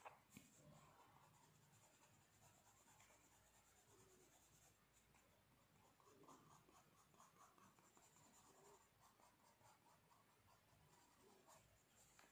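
Faint scratching of a black colour pencil shading back and forth on paper.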